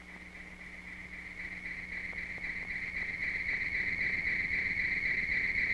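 A steady, high insect trill that grows steadily louder, over a faint low hum.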